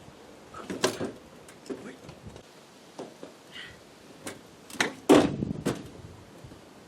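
A series of irregular knocks and clunks, about seven in all, the loudest about five seconds in, from the homemade washing-machine-carrying unicycle being handled and mounted.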